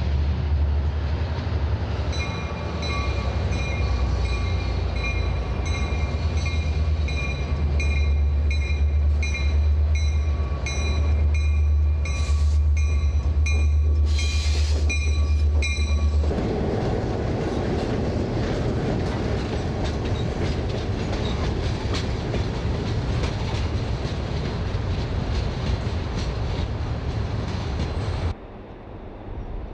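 EMD F59PH diesel locomotive running close by with a steady low engine hum while its bell rings about one and a half times a second, with two short hisses of air past the middle. After an abrupt change at about sixteen seconds, a freight train rumbles past with faint clicking of wheels over rail joints.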